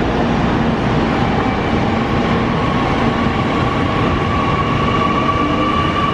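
JR Kyushu 813 series electric multiple unit pulling away from the platform: a steady rumble of wheels and running gear, joined about two and a half seconds in by an electric traction motor whine that climbs slowly in pitch as the train accelerates.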